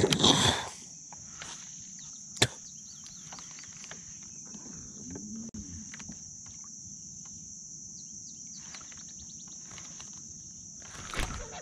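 A steady, high-pitched drone of insects, with a loud burst of handling noise at the very start and a single sharp click about two and a half seconds in.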